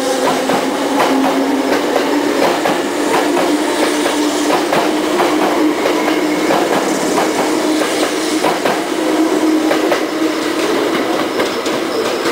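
Hankyu electric train cars rolling slowly past close by over the junction's points and crossings, with an irregular clatter of wheel clicks and clacks over rail joints and frogs. Under the clatter is a steady low hum that rises slightly in pitch.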